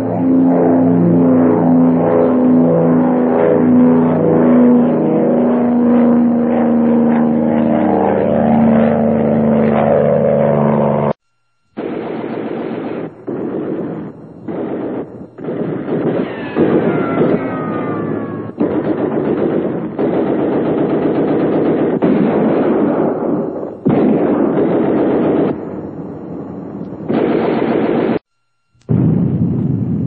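Sound-effect montage of a bomber in action: a steady drone of aircraft piston engines for about eleven seconds, then, after a brief cut, choppy bursts of machine-gun fire with a few falling whistles of dropping bombs partway through.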